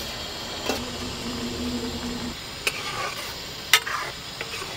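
A metal ladle stirring a curry gravy in a metal kadhai on the stove, with freshly added tomatoes. The gravy sizzles steadily, and the ladle clicks against the pan a few times. A low steady hum runs for about a second and a half near the start.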